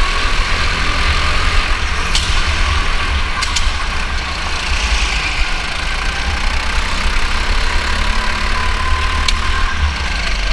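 Go-kart motor heard from the kart's onboard camera, running steadily with its pitch rising and falling a little through the corners, over a heavy low rumble of vibration on the microphone. A few sharp ticks cut through.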